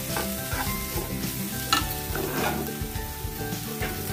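A spatula stirring and scraping fenugreek-leaf saag in a non-stick frying pan over a soft sizzle, mixing in sprinkled flour to bind it. The scrapes come at an uneven pace, the loudest a little under two seconds in.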